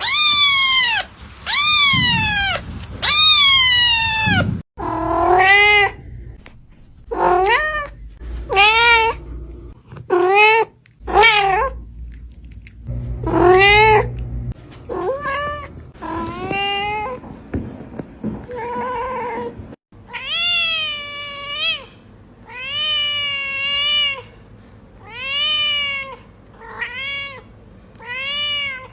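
Domestic cat meowing over and over, a string of loud, drawn-out meows. The early ones fall in pitch. From about two-thirds of the way in they come evenly, about one every second and a half.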